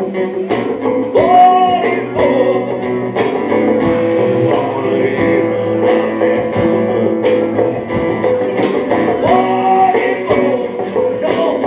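Live rock band playing a song: electric guitar over bass and a drum kit keeping a steady beat.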